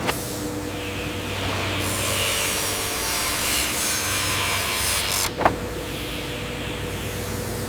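Wood-cutting machinery at work: a steady rasping noise of wood being sawn or cut over a low machine hum. The sound shifts abruptly twice, with a sharp click about five seconds in.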